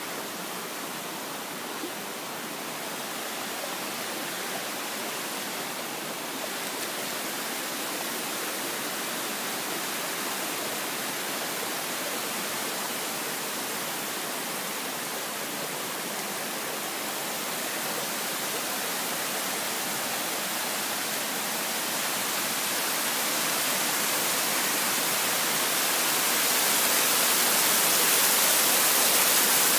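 Waterfall rushing, a steady noise of falling water that grows gradually louder, most of all over the last few seconds.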